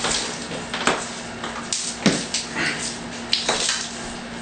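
Irregular knocks, taps and scrapes as an Onyx Collection shower wall panel is shifted against the base and pressed by hand onto its silicone against the back wall.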